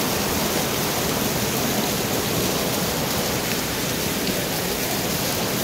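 Steady rushing noise of heavy rain mixed with a flood-swollen river running fast around a bridge pier.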